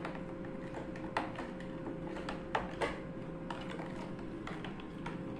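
Long plastic spoon stirring juice in a plastic jug, knocking against the sides and bottom in irregular clicks and taps, with a faint steady hum underneath.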